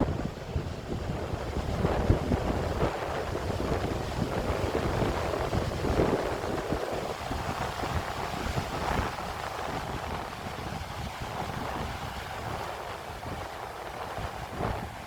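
Wind buffeting the microphone in uneven gusts over the wash of ocean waves.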